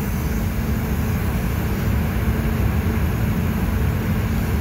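Paint spray booth's ventilation fans running, a steady low rumble with an airy hiss over it.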